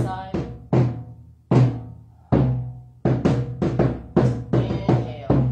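Background music of drums: a run of strikes, each with a deep boom and a short ringing tone, at about two to three a second.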